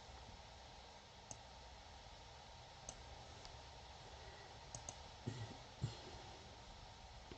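Faint computer mouse clicks, a handful spread out with two in quick succession, over low room hiss, followed by a couple of soft low thuds.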